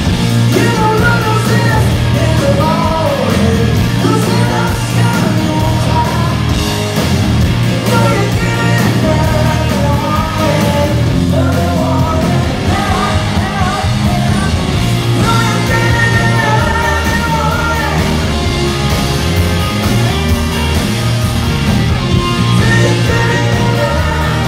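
Live rock band playing loudly, with a woman's lead vocal sung over distorted electric guitars, bass and drums, as heard from the audience.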